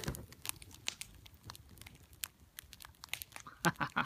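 Burning wood crackling and popping in an upright split-log fire (a Swedish torch): irregular sharp pops throughout, with a louder cluster about three and a half seconds in.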